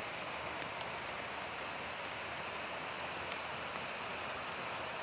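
Steady rain falling: an even hiss, with a few faint ticks of drops.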